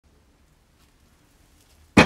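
Quiet at first, then right at the end a sudden loud clunk as the metal Metcalfe manual potato chipper is set down hard on a wooden floor, with a brief ringing after it.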